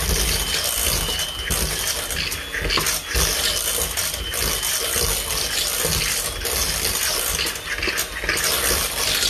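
Electric hand mixer running, its twin beaters whipping mashed potatoes in a pot, with a high steady motor whine that fades about two and a half seconds in.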